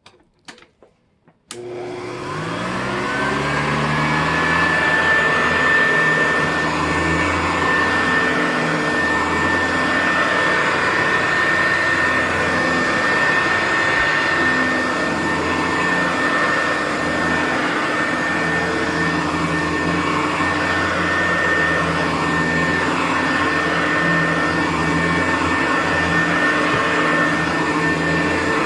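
Hoover U4007 upright vacuum cleaner switched on after a few clicks. Its motor spins up with a rising whine that settles into a steady high tone, then it runs steadily on carpet with its four-row brushroll turning.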